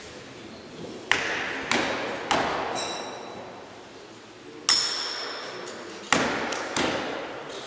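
Throwing knives striking wooden target boards: six or so sharp thwacks at uneven intervals, some with a brief metallic ring from the steel blade, each echoing in a large hall.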